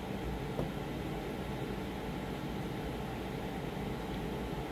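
Steady background hum and hiss of room noise, with a faint click about half a second in.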